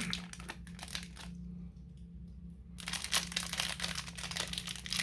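Plastic bag of dice crinkling as it is handled and opened, in two spells with a pause of about a second and a half between them. A faint steady low hum runs underneath.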